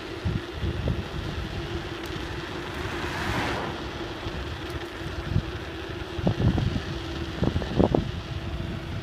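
Bicycle riding over rough ground with wind buffeting the microphone. The wind runs throughout with a faint steady hum under it, and there are jolts and rattles from bumps, a cluster of sharp knocks coming between about six and eight seconds in.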